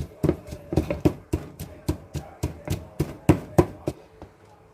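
Pestle pounding chillies and garlic in a mortar: steady rhythmic knocks, about three to four a second, that stop about four seconds in.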